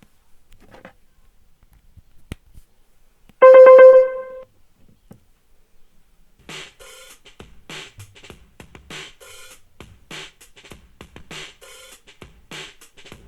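Electronic music playing through a KitSound Hive X Bluetooth speaker in a sound test. It starts quiet with a few faint ticks. About three and a half seconds in, one loud held keyboard-like note sounds for about a second. From about halfway, a drum-machine beat comes in with a hit roughly every 0.6 s.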